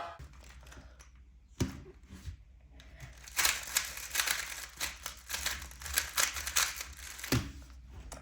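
Plastic speedcube being handled and turned: quick, irregular clicking and rattling of the layers. There is a heavier knock about one and a half seconds in and another near the end.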